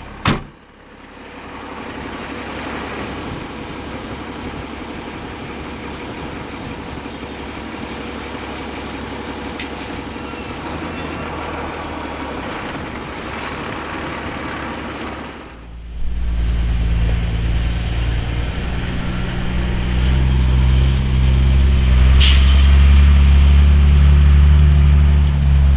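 Mercedes Unimog U1700L truck on the move: a steady drone for about fifteen seconds, then a much louder, deep diesel engine rumble from about sixteen seconds on. There is a sharp click at the very start.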